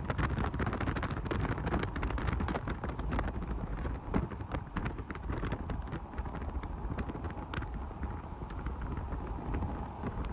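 Wind buffeting the microphone: a steady low rush, with many small crackles and ticks through it.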